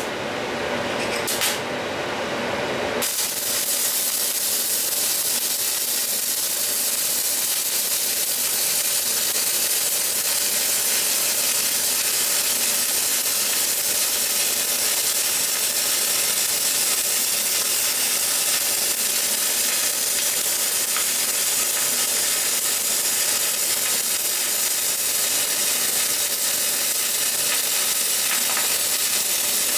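Stick (MMA) welding arc from a basic electrode run at 160 amps. For the first three seconds the arc is getting going, with a couple of brief sharp sounds about a second and a half in; then it settles into a steady hiss.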